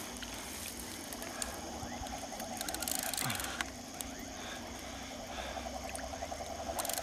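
Night chorus of insects and frogs: a steady high trill with a lower pulsing trill that grows stronger about halfway through, and a few faint clicks.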